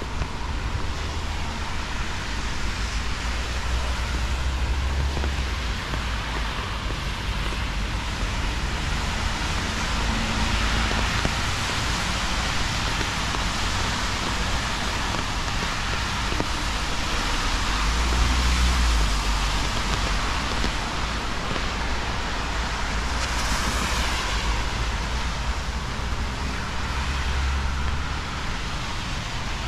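Steady hiss of falling rain, with a low rumble that swells and fades three times.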